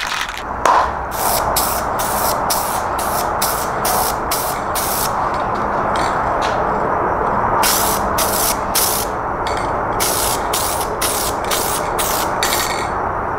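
Aerosol rattle can of spray paint hissing in short passes of about half a second each, laying a coat of paint on a car side-mirror cover. The passes come in three runs with brief pauses between.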